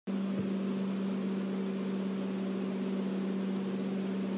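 Steady electrical hum with a constant hiss underneath: background room tone with no distinct event.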